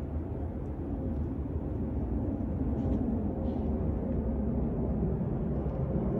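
Distant jet noise of an Airbus A330-300 airliner flying overhead: a steady low rumble that slowly grows louder.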